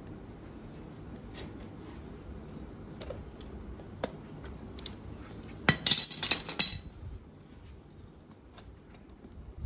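Steel farrier's tools clinking against a horse's metal shoe and nails as the shoe is worked on: scattered light clicks, then a loud cluster of rapid, ringing metallic clinks lasting about a second, just past the middle.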